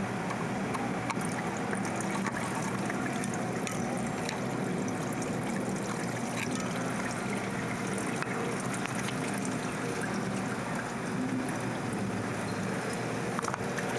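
Steady rushing background noise with scattered light clicks and taps of hand tools against engine parts.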